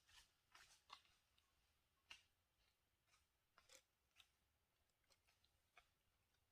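Near silence, broken by faint, irregular small clicks and snips, about seven over several seconds.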